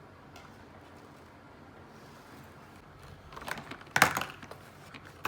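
Plastic toy building blocks being handled and pressed together: after about three seconds of quiet room tone, a quick run of hard plastic clicks and rattles, the loudest a sharp snap about four seconds in, with one more click at the end.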